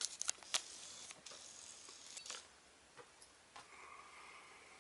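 Faint handling sounds: a few light clicks and taps in the first second, then scattered small ticks, with a faint thin squeak-like tone near the end as the iPod is brought into place.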